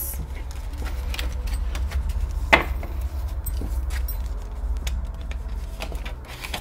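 Hands handling plastic cash-envelope sleeves and paper banknotes on a tabletop: light rustling and scattered clicks, with one sharper click about two and a half seconds in.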